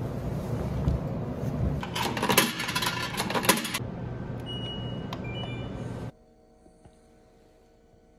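Laundry being pushed from a nylon bag into a front-loading washer, the clothes and bag rustling, then a few short electronic beeps from an LG commercial washer's control panel as its buttons are pressed. It cuts off suddenly to near silence: room tone.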